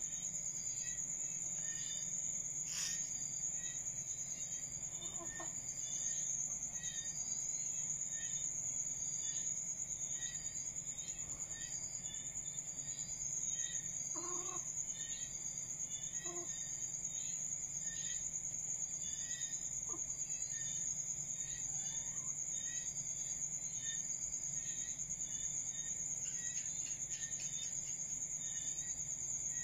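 A steady high-pitched insect trill throughout, with a few short, soft clucks from red junglefowl scattered through it, about five, fourteen, sixteen and twenty seconds in.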